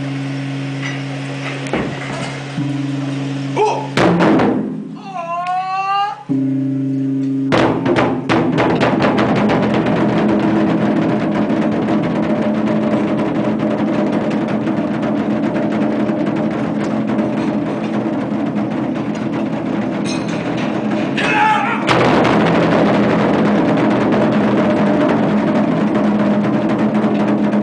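Ensemble of large Chinese barrel drums (tanggu) struck with sticks, breaking into a fast, continuous drum roll about seven seconds in that keeps up to the end. Before the roll, a steady low hum and a brief rising tone.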